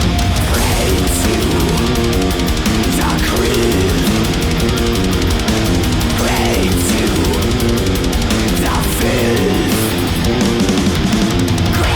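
Thrash metal song playing, with distorted electric guitars over fast, dense drumming.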